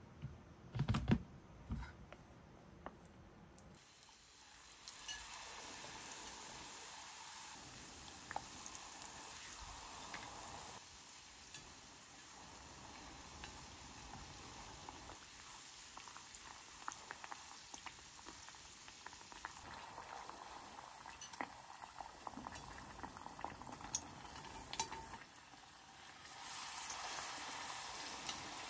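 Tempura deep-frying in hot oil: a steady sizzle with scattered crackles that grows louder near the end, after a few knocks of utensils at the start.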